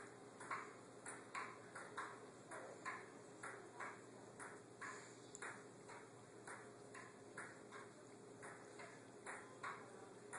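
Faint light clicks repeating unevenly, about two a second, each with a short ringing tail.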